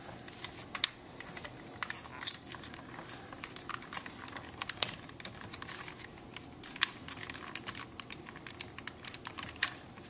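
Irregular small clicks and taps of hard plastic as a car's power window master switch and its door-trim housing are handled.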